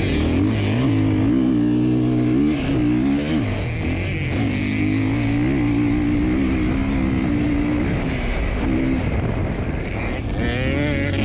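2020 Husqvarna FE 501's single-cylinder four-stroke engine running hard under load, heard close up on the bike. Its pitch holds steady, then dips and climbs again a few times as the rider comes off and back on the throttle, with a rising rev near the end.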